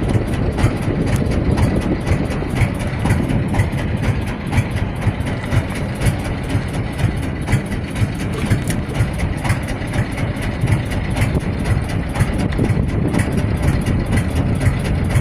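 Fishing boat's engine running steadily under way: a loud, even low rumble with rapid ticking over it.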